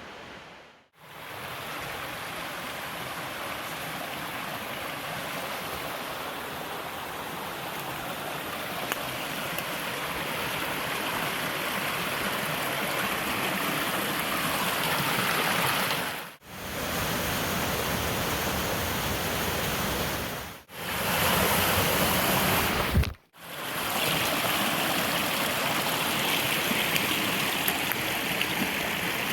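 Creek water rushing over rocks below a waterfall, a steady full-range rush that grows gradually louder. It breaks off sharply for a moment about a second in, and three more times later on, where clips are spliced together.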